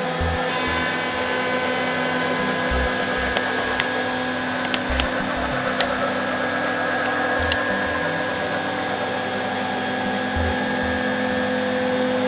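6090 CNC router's spindle running with a steady whine of several held tones as a 32 mm bit takes a shallow skimming cut across the top of laminated MDF, levelling its uneven surface. A few faint ticks come about five seconds in.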